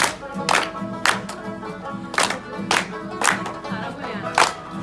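Music for a Ludi folk dance: singing over a melody, punctuated by sharp percussive beats about every half second to second.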